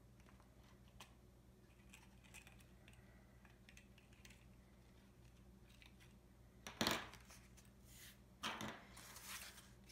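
Handling of a cardstock shadow box and its paper ferns: faint small ticks and touches at first, then a few louder scuffs and rustles of card in the last three seconds as the frame is lifted and moved.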